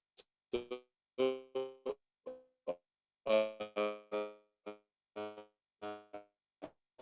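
Instrumental music: a melody of short, separate notes on a keyboard or plucked instrument, about two notes a second.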